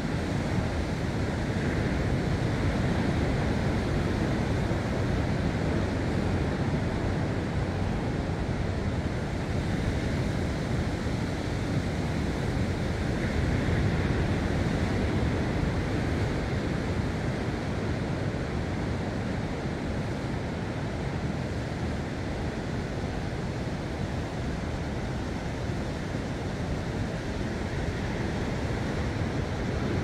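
Sea surf washing against a rocky shore in a steady rush, swelling a little a couple of seconds in and again around the middle, with wind on the microphone.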